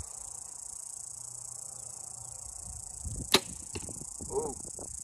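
Compound bow shot: the string releases with a single sharp snap about three seconds in, followed about half a second later by a fainter knock. A steady high insect drone runs underneath.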